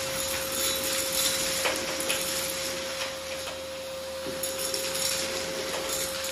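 Canister vacuum cleaner running with a steady whine over a rushing hiss, its nozzle working a hard floor and picking up small bits of debris that click now and then as they are sucked up the wand.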